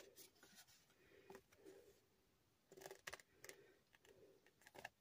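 Near silence with faint rustles and a few light clicks from paper colour-swatch cards being shuffled in the hands, the loudest cluster about three seconds in.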